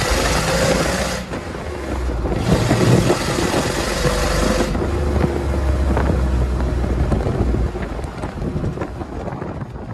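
A lifted rat rod pickup truck driving, heard from inside the cab: its engine runs under a steady wash of wind and road noise, and it eases off near the end.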